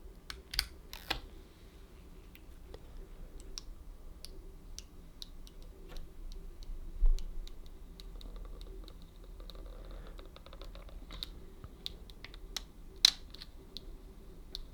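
Scattered light clicks and taps of plastic as a screen protector and its plastic fitting piece are pressed down onto a Samsung flip phone, with one low thump about seven seconds in.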